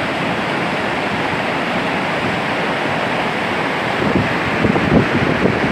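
Steady rushing noise of fast-flowing water, with wind buffeting the microphone in irregular gusts from about four seconds in. No siren is heard.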